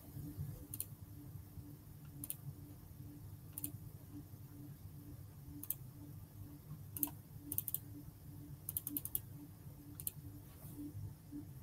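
Faint clicks of a computer keyboard and mouse being operated to switch the screen share. They come singly every second or two, with quick runs of three to five clicks a little past halfway, over a steady low hum.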